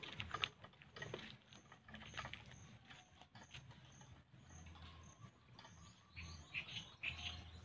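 Footsteps and scuffs on a dirt path, faint, with a short high chirp repeating about twice a second.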